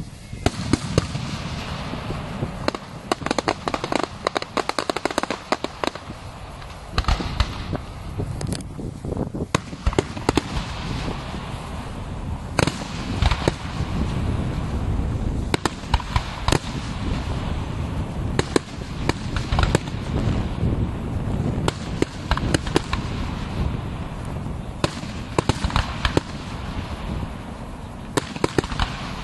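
Fireworks display: a continuous barrage of booming shell bursts and sharp crackling reports, with dense rapid clusters of cracks several times, over a steady low rumble.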